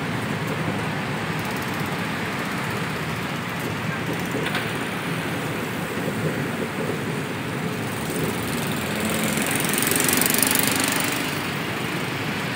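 Steady engine and road noise of a truck driving through city traffic, heard from the open back. About nine seconds in, the noise swells louder with a rising hiss for a couple of seconds, then settles back.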